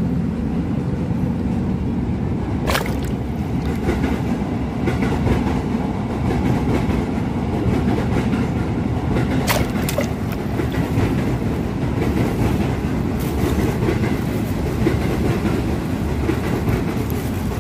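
A steady low rumble, with a sharp click about three seconds in and two more close together near ten seconds.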